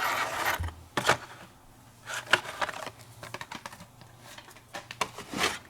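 Blister-packed Hot Wheels cars (cardboard cards with plastic bubbles) being handled, with a rustle at first and then scattered sharp clicks and clacks as the packages knock together.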